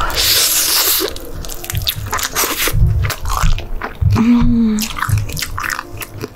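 Crunchy seasoned fried chicken being bitten and chewed close to a condenser microphone: a crackling crunch of the coating at the start, then repeated wet chewing clicks and thumps. A short hummed "mm" comes about four seconds in.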